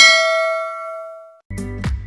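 Notification-bell 'ding' sound effect of a subscribe-button animation: one ringing chime that fades and cuts off abruptly about one and a half seconds in. Background music starts right after.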